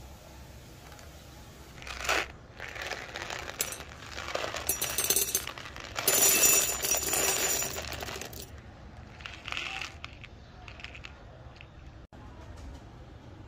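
Whole roasted coffee beans poured into a small stainless steel cup, rattling against the metal. The rattle starts about two seconds in, is heaviest around six to eight seconds, and dies away to a few scattered clicks.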